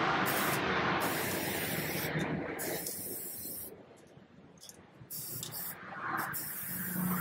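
Aerosol spray-paint can hissing as it sprays, a long continuous spray that stops for about a second and a half near the middle, then starts spraying again.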